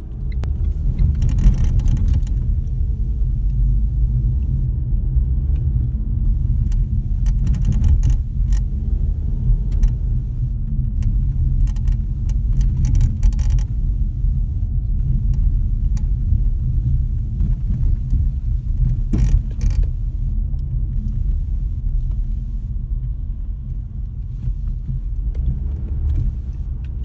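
Car driving, heard from inside the cabin: a steady low road and engine rumble, with short creaks breaking in at irregular moments. The creaks are a squeak somewhere in the car whose cause is not yet known.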